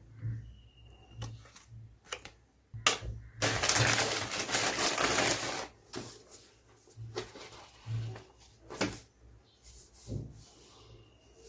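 A parcel being opened by hand: scattered clicks, knocks and rustles of packaging, with one long noisy rip or crinkle about three and a half seconds in that lasts around two seconds.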